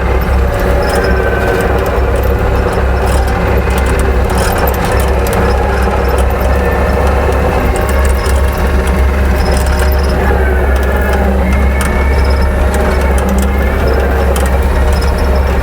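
Kubota skid steer's diesel engine running steadily as the machine drives, with clanks and rattles from the machine and the tree spade and a few faint, brief squeals.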